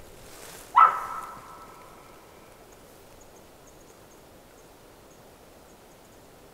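An elk calls once, about a second in: a sudden loud call that holds its pitch and fades over about a second.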